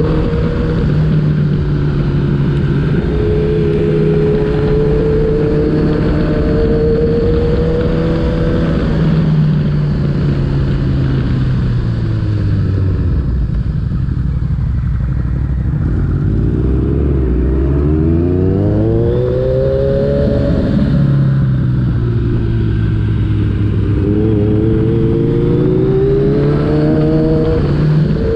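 Motorcycle engine running and pulling through the revs, its pitch rising on the throttle and falling as it eases off. The revs sink about halfway through, climb sharply again, then dip and rise once more near the end, over a steady low rumble.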